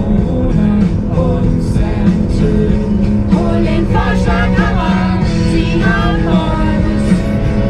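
Rock-style music with singing over guitar, playing steadily.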